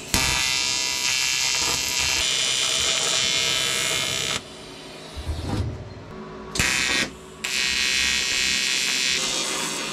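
Welding arc on aluminium plate, buzzing with a steady hiss as the hull pieces are tacked together. It runs for about four seconds, stops, sparks again briefly a little after halfway, then runs once more for about a second and a half.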